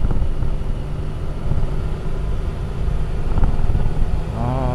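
Triumph Tiger 1050's three-cylinder engine running steadily under way, pulling up a steep mountain grade, heard with heavy wind rush on the helmet-mounted microphone.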